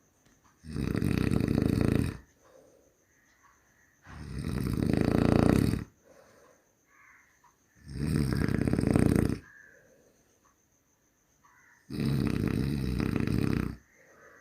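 A sleeping person snoring: four long, loud snores about four seconds apart, each lasting around a second and a half, with quiet breathing between them.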